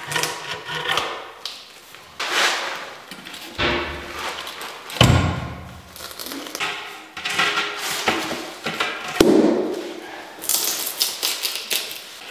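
Ceramic floor tiles being laid into tile adhesive: a run of knocks, taps and scrapes as tiles are set down, slid and pressed into the bed, with heavier thumps about five and nine seconds in.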